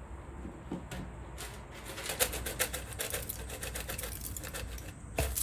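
Crisp dry flakes poured from a plastic tub into a ceramic bowl: a dense run of light, rapid clicks and rattles lasting a few seconds. There is a single knock about a second in and a louder one near the end.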